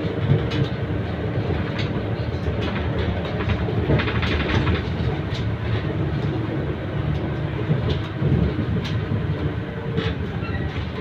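Isuzu LV423R city bus under way, heard inside the cabin: a steady low engine drone with road noise. Frequent short rattles and clicks from the bus body and fittings run over it.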